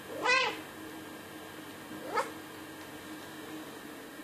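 Cat giving two short calls that rise and fall in pitch, about two seconds apart, the first one louder.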